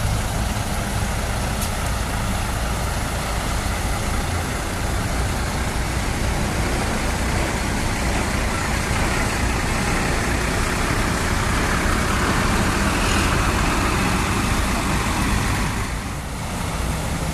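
Mercedes-Benz coach's diesel engine running as the bus moves slowly past, a steady low rumble with a rushing noise that swells in the second half.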